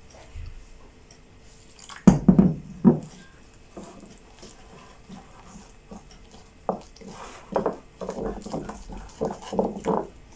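Wooden spoon stirring thick bhajia batter in a glass bowl, knocking and scraping against the glass. A cluster of louder knocks comes about two seconds in, and a quicker run of knocks and scrapes in the second half.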